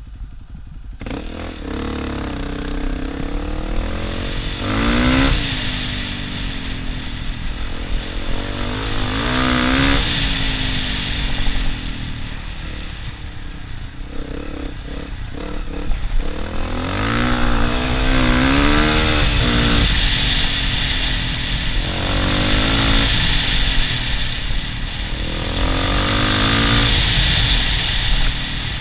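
Dual-sport motorcycle engine under way, its pitch rising and falling several times as the throttle is opened and eased, over a steady rush of wind and tyre noise.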